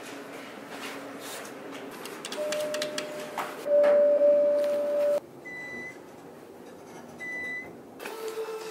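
Electronic tones: a steady mid-pitched tone that grows louder about halfway in and cuts off suddenly. Two short, higher beeps follow, about two seconds apart.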